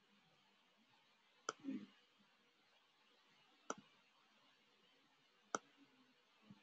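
Three sharp computer mouse clicks, about two seconds apart, over near silence.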